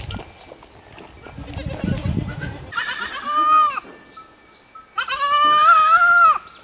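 A young goat kid bleating twice: a short, high call about three seconds in, then a longer, louder, steady call about two seconds later.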